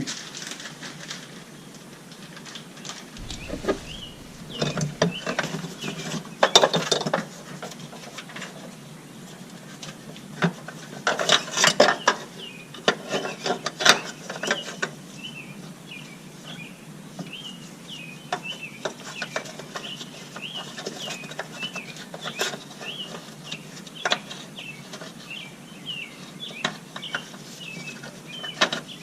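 Scattered clicks, knocks and rattles of hands working a plastic breather hose and clips on the underside of a vehicle, pushing the air suspension compressor's breather line back into its plastic tree fastener. The handling is busiest in the first half, then thins to light ticks.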